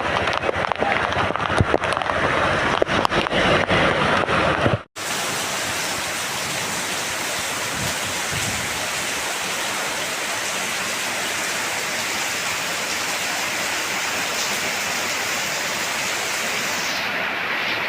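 Heavy rain: at first a dense crackle of drops striking a hard surface, then, after an abrupt cut about five seconds in, a smooth steady downpour hiss.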